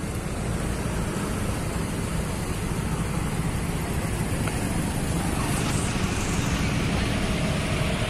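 Large coach bus's diesel engine running steadily at low revs as the bus creeps forward toward the fuel pump.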